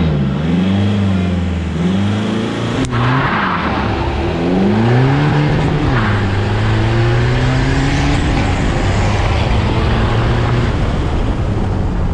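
Fiat Doblò van's 1.3 Multijet four-cylinder diesel engine pulling hard through the gears: the engine note climbs and falls back at each of about three gear changes, then holds steady about halfway through, with wind and road noise over it. A single sharp click about three seconds in.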